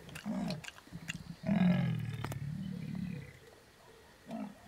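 Deep, rasping wild animal call, which the camper takes for a leopard near his camp: a short grunt, then a longer call about a second and a half in that fades away.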